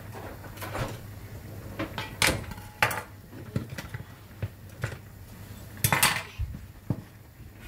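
A knife and fork set down on a hard kitchen countertop beside a ceramic tart dish: a few sharp clinks and knocks, the loudest a little after two and three seconds in and again about six seconds in.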